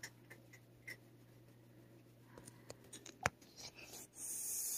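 A frightened cat gives one harsh, breathy defensive hiss lasting about a second near the end. Before it come a few soft rustles and one sharp click as the cat is handled.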